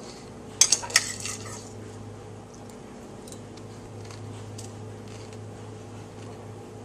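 Metal spoon clinking against a white ceramic bowl: three sharp clinks about a second in, then fainter light taps as the spoon works in the bowl.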